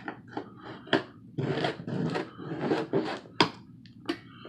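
Cardboard packaging being opened and handled: irregular scraping and rustling of cardboard, with a few sharp clicks and taps.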